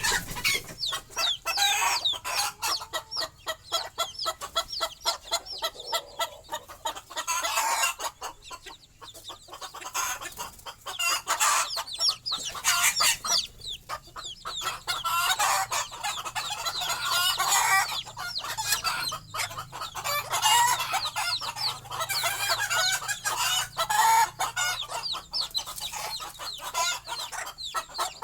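A brood of baby chicks peeping constantly, many short, high, falling calls overlapping, with a mother hen's low clucking beneath. The flock is settling to roost for the night.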